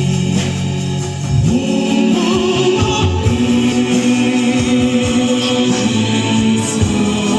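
Live concert music: long held notes in slow, sustained chords over a steady bass.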